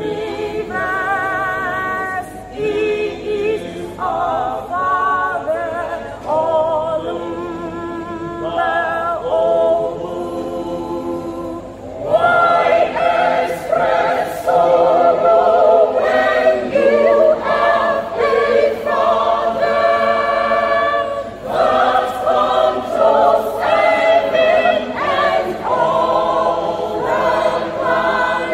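Church choir singing in several voice parts. The singing is thinner and quieter at first, then the full choir comes in louder about twelve seconds in.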